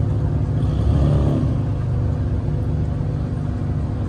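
Steady low engine rumble, swelling briefly about a second in.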